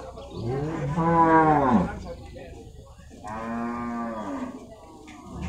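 Water buffalo lowing twice. The first call comes about half a second in, is the loudest, and rises then falls in pitch over about a second and a half. A shorter, softer call follows about three seconds in.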